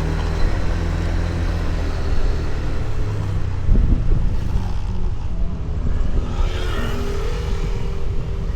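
Motor scooter engine running on the road, a steady low drone that breaks up after a thump about four seconds in and then runs rougher and more uneven.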